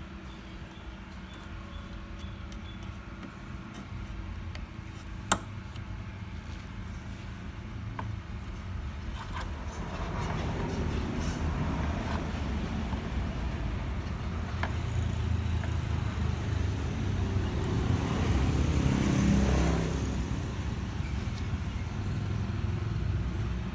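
Low rumble of motor traffic that swells after about ten seconds and is loudest near twenty seconds, then eases a little. A single sharp click comes about five seconds in.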